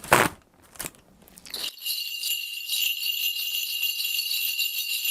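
A couple of sharp knocks, then from about a second and a half in a shaman's cluster of ritual bells shaken continuously in a steady jingling.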